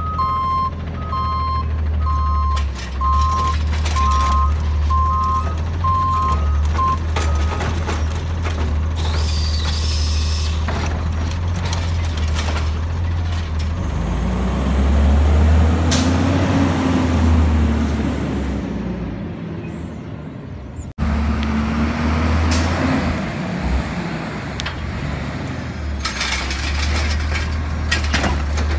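Automated side-loader garbage truck's diesel engine running, with a backup alarm beeping about once a second for the first seven seconds, a hiss of air about ten seconds in, and the engine revving up and back down in the middle. After a sudden cut, a second side loader's engine runs with a slightly rising note and more hissing near the end.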